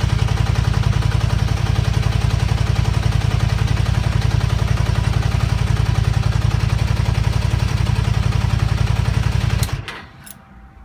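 Honda Xelvis 250 V-twin engine idling steadily with the noise the owner suspects is the cam chain rubbing because the tensioner is not taking up its slack. The engine cuts off suddenly near the end, followed by two short clicks.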